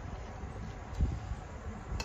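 Soft low thumps and rumble of hands mixing rice and curry in steel plates at a table, with one louder thump about a second in.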